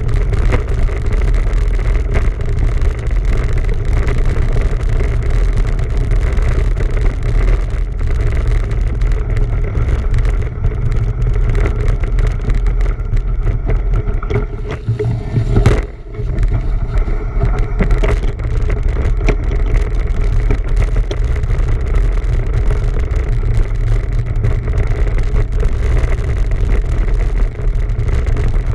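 Steady loud rumble of wind buffeting the microphone while riding a bicycle, with a brief dip and a sharp click about halfway through.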